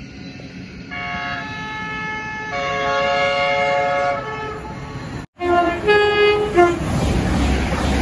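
Electric passenger train horns: a multi-tone horn chord sounds for about three seconds, shifting notes partway through. After an abrupt cut, a second train horn gives a few short notes, followed by the loud rush and rumble of a train running close past.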